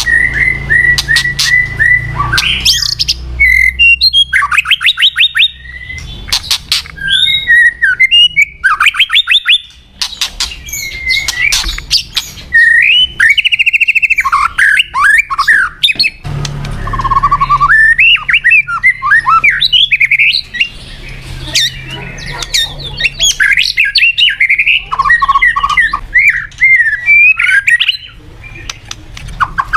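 White-rumped shama singing a long, varied song of clear whistles, fast trills and harsh chattering notes, broken by runs of sharp clicks, with short pauses about ten and sixteen seconds in.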